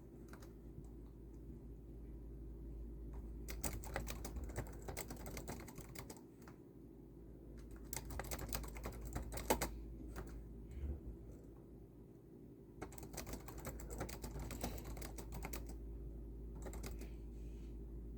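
Typing on a computer keyboard: about four bursts of rapid key clicks separated by short pauses, over a steady low hum.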